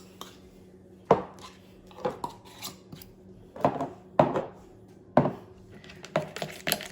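A utensil clinking and scraping against a bowl in irregular knocks, about one a second, as a yogurt marinade is stirred.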